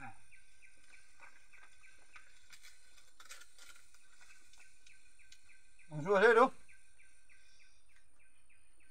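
Steady, rhythmic high-pitched chirping, about three chirps a second. About six seconds in, a person's voice sounds briefly and loudly with a wavering pitch.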